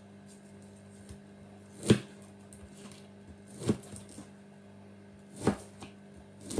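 Kitchen knife slicing through fish balls, each cut ending in a sharp knock on a plastic cutting board, three evenly spaced cuts about two seconds apart, with a fourth starting at the very end.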